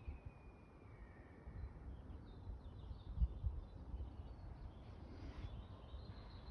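Outdoor ambience with faint small-bird calls: a thin whistle falling slightly in pitch over the first two seconds, then scattered high chirps. Under it runs a low, uneven rumble.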